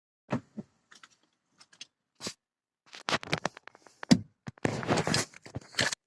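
Irregular knocks and clatter of loose plastic side trim on a LADA XRAY Cross, with a loud knock about four seconds in and a rapid rattle just after. The knock hunted for in the caliper or steering rack turns out to be this side plastic.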